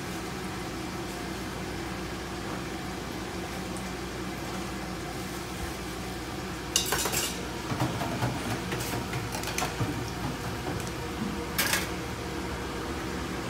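Dishes and utensils clattering: a sharp clank about seven seconds in, a run of lighter clinks and knocks, and another clank near the end, over a steady background hum.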